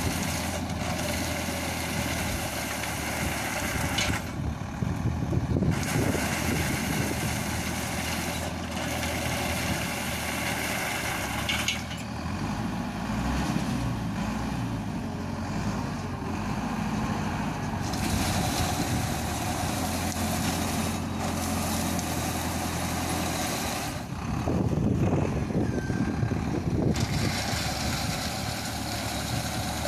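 Engine of a self-propelled olive-harvesting machine running steadily while its boom-mounted comb frame works an olive tree's canopy, with an uneven low rumble swelling up a few times.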